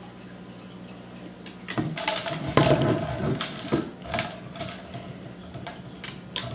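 Glass mason jar with a metal screw lid knocked over onto a hardwood floor, clattering and rolling with a ringing glassy note for about two seconds, then a few lighter knocks as it is nudged about.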